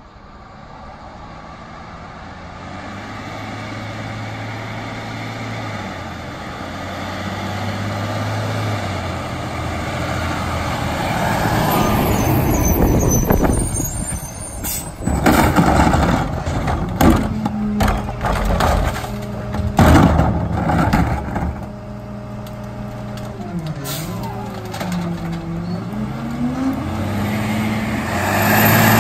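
Freightliner M2 garbage truck with a Heil PowerTrak rear-loader body drives up louder and louder and stops with a hiss of its air brakes. A trash cart is then banged against the hopper several times as it is emptied, while the engine and packer hydraulics drone steadily. The engine grows louder again near the end as the truck pulls off.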